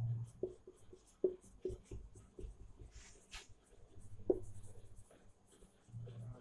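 Marker pen writing on a whiteboard: an irregular run of short strokes and taps, with one longer hissing stroke about three seconds in.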